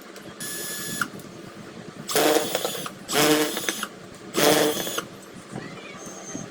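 A small electric motor, most likely a handheld power tool, running in three short bursts of under a second each with a fast rattling buzz, after a brief steady whine near the start.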